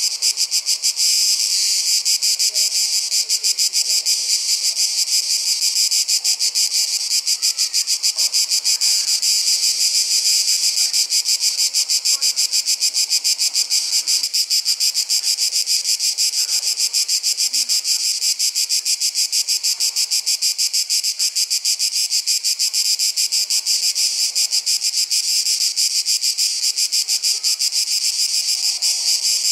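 A dense chorus of summer insects chirring, a high-pitched rapid pulsing that holds steady and loud.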